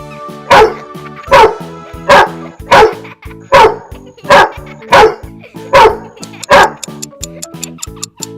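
A dog barking nine times in a steady rhythm, a little under a second apart, then falling silent about two seconds before the end.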